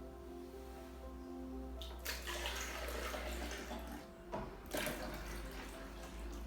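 Soft background music, with water running in two spells, the first about two seconds in and lasting about two seconds, the second shorter, near the end.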